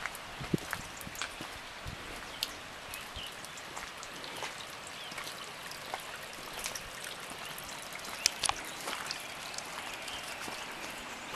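Light rain falling, a steady patter with scattered sharp drips and taps.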